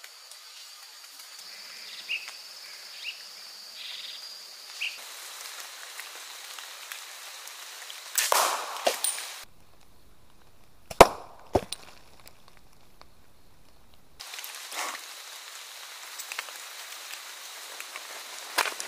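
Mechanical slingshot rifle being shot at a hanging glass bottle: scattered sharp clicks and snaps over a faint outdoor background. A cluster of louder cracks comes past the middle, the sharpest about eleven seconds in with another close behind.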